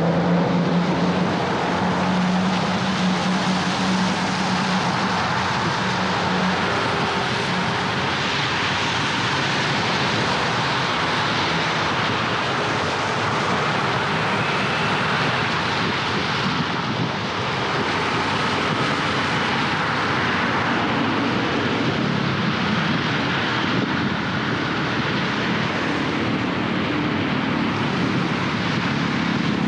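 Steady traffic noise from a car driving on wet city streets: tyres hissing on rain-soaked asphalt, with engine hum from the car and the vehicles around it. A low engine drone is heard through the first several seconds and then fades.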